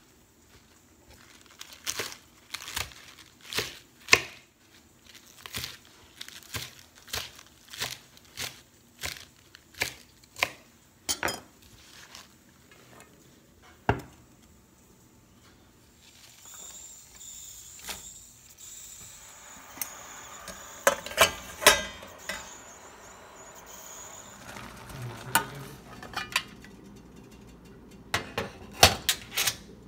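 Knife chopping green chillies on a wooden cutting board, a sharp chop every half second or so through the first half. After that come rustling spinach leaves and metal clinks of a steel bowl and utensils.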